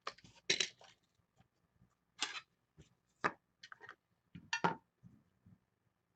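A trading card being handled and worked out of its hard plastic holder: a series of short scrapes and clicks, the loudest about two, three and four and a half seconds in.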